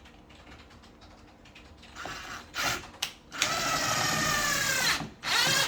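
Cordless drill driving a screw into a door hinge: a short burst of the motor, then a run of about a second and a half whose pitch sinks at the end as the screw draws in, then another short burst near the end.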